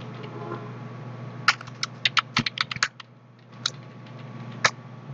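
Computer keyboard keystrokes as text is typed: a quick run of about eight keys about a second and a half in, then two single keystrokes about a second apart.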